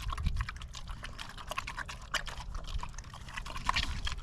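Pigs eating fruit, a quick irregular run of wet chomping, crunching and smacking.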